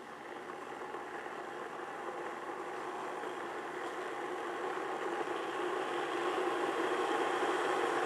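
KitchenAid KEK1322SS glass electric kettle heating about 6 cups of water toward the boil, a steady rumbling hiss from the bubbling water that grows gradually louder.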